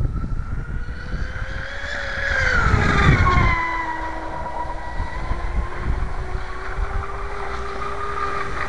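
Electric RC speedboat's Medusa 3670 2000kv brushless motor whining at full speed on 6S power. It is loudest as the boat passes close about three seconds in, where the pitch slides down, then it settles into a steady, lower whine as the boat runs away.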